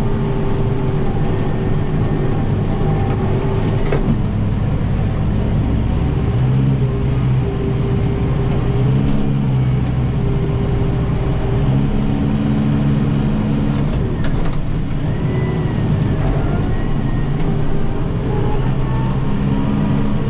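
Kubota 7060 tractor's diesel engine running steadily under load while driving a rear-mounted snowblower, its pitch dropping and rising several times.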